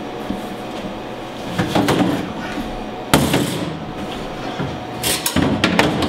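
Plastic bus tubs being put down on a stainless-steel dish table: a few knocks and thumps, the loudest about three seconds in, then a cluster of sharp clicks near the end.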